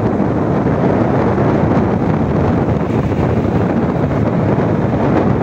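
Wind buffeting the microphone: a loud, steady rush without breaks.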